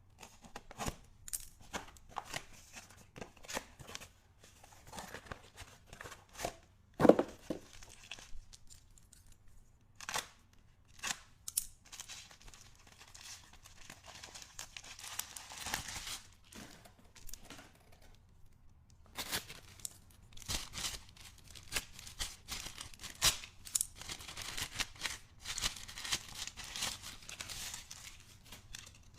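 Packaging being handled up close: crinkling, tearing and many small clicks and taps, with one louder knock about seven seconds in.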